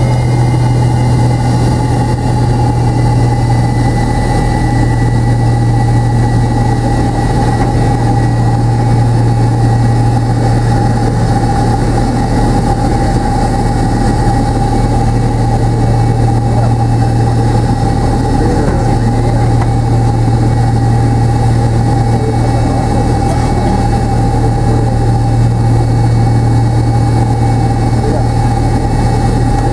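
Steady drone inside the cabin of a McDonnell Douglas MD-83 taxiing, its tail-mounted Pratt & Whitney JT8D turbofans at low thrust: a strong low hum with a steady mid-pitched whine over an even hiss of air, holding level without spooling up.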